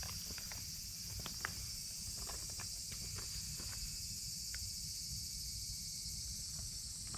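Steady high-pitched chorus of insects with a low rumble underneath and a few faint scattered clicks.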